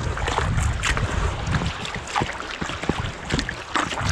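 Water sloshing and splashing irregularly around an inflatable inner-tube float as it is paddled across the sea, with wind rumbling on the microphone.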